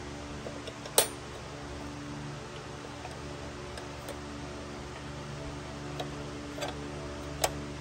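A sharp click about a second in and another near the end, with a couple of fainter ticks between, over a steady low hum.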